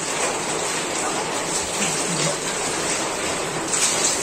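Water running and splashing steadily over a goat carcass as hands rub and wash its wet skin.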